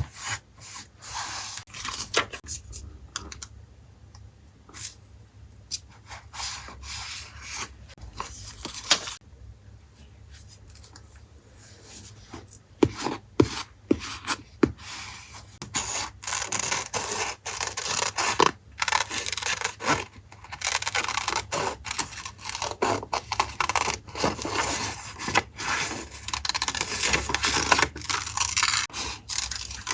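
Paper being handled for a journal collage: irregular scraping and rubbing strokes with sharp clicks, busier and louder in the second half.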